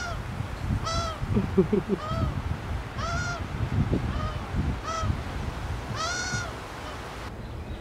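Ivory-billed aracari giving its soft 'sweet noise', a contented call made while its head is scratched: a series of about seven short calls, each rising then falling in pitch, roughly one a second. Wind rumbles on the microphone underneath.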